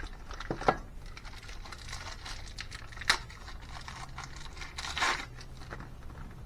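Small handling sounds of new valves being fitted into an LS cylinder head: light metal clicks and knocks, two sharp ones about a second and three seconds in, with a rustle around five seconds.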